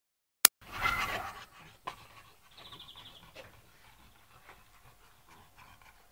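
Dogs play-fighting: a sharp click as the sound cuts in, then a loud outburst of dog noise lasting under a second, followed by fainter scuffling sounds.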